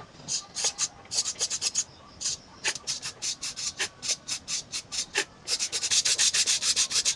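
Short rubbing, rasping strokes, a few a second and uneven, coming faster and closer together near the end.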